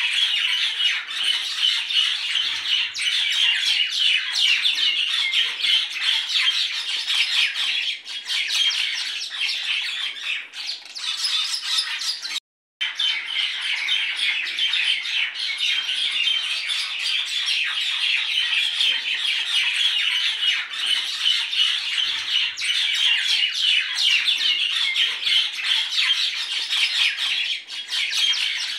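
A flock of small birds chirping and squawking continuously in dense chatter, cut off for a moment about twelve seconds in.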